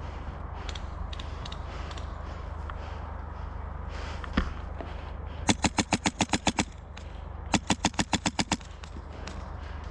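Phylax One HPA airsoft M4 firing: one single shot, then two quick strings of about ten sharp shots a second, each about a second long.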